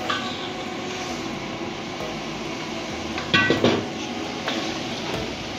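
Metal ladle stirring and clinking against a steel wok, with one sharp ringing clank about three and a half seconds in, over the steady rushing noise of the wok burner.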